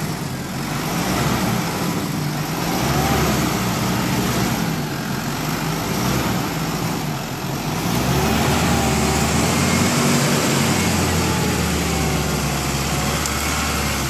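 Mahindra Thar's diesel engine running under load as the jeep pulls through deep mud, growing louder and steadier about eight seconds in.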